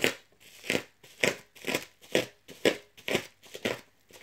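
Bubble wrap and packing tape being torn and crumpled off a boxed vinyl figure, in a run of sharp crackly strokes about two a second.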